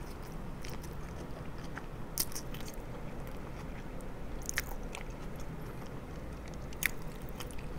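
A person chewing a mouthful of hamburger close to the microphone, with a few faint, sharp mouth clicks over a low steady hum.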